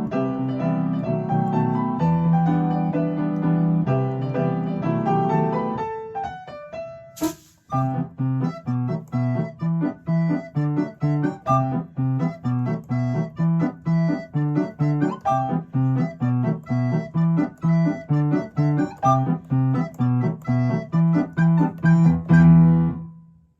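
Piano playing held chords that die away about six seconds in, then, after a single click, steady repeated chords, about two or three a second, until the playing stops sharply near the end.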